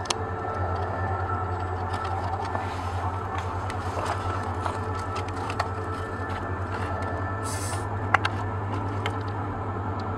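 Hands handling and pressing broken pieces of an EPP foam RC plane fuselage together, with scattered small clicks and rubs and a brief hiss about three-quarters of the way through, over a steady low hum.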